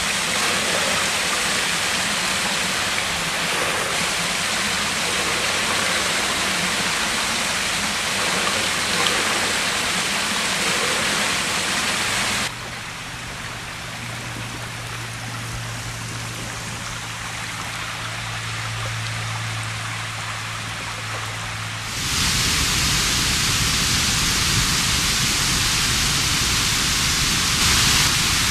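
Steady rushing of water in an open woodland culvert stream fed by storm runoff from a road sewer. About halfway through it drops to a quieter hiss with a low steady hum underneath for several seconds, then comes back louder near the end.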